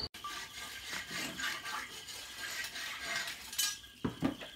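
Live shrimp crackling and clicking as they flick about among leaves in a plastic bucket, with a couple of thumps near the end.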